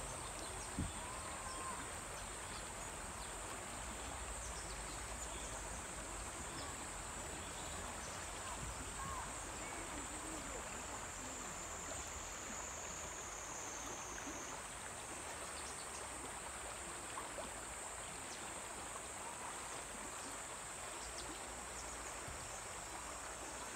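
Water rushing steadily over a shallow river riffle, with a steady high-pitched insect buzz above it that shifts pitch once about halfway through.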